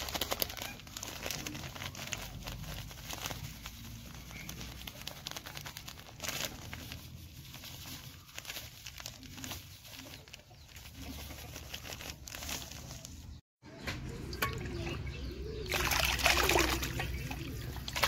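Plastic sack rustling and crackling as white powder is shaken out of it onto dry feed in a concrete pot. After a cut about three-quarters of the way in, a steel bowl scoops and stirs wet pig-feed slop in a concrete tub, splashing and trickling, loudest near the end.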